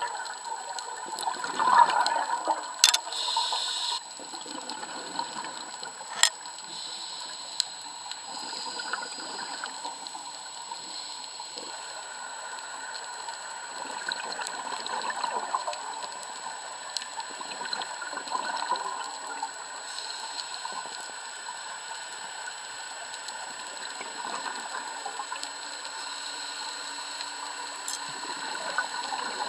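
Underwater sound picked up inside an action camera's waterproof housing: scuba divers' exhaled regulator bubbles gushing in surges over a steady watery hiss, loudest in the first few seconds, with a few sharp clicks.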